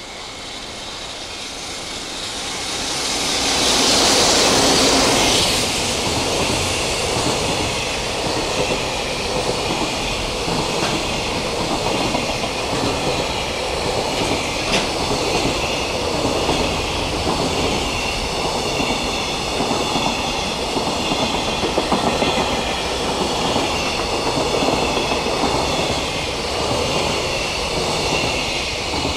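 A JR Freight container train passes close by. The electric locomotive goes past loudest about four seconds in. After it, a long string of container wagons rolls by with a steady clickety-clack of wheels over the rail joints, and the sound begins to fade right at the end as the last wagon clears.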